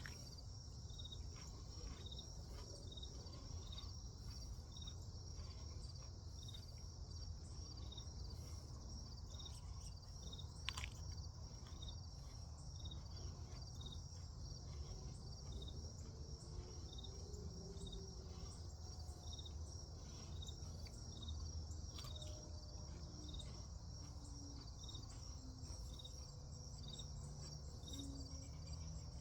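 Night insects, crickets, calling steadily: a continuous high trill with a short chirp repeating about once a second. Two faint sharp clicks stand out, about a third and two thirds of the way through.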